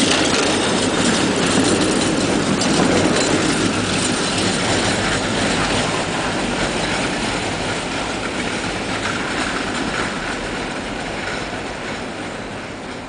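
Two-car Tatra T3 tram train running on its rails, passing close by and then pulling away, its sound fading steadily as it recedes.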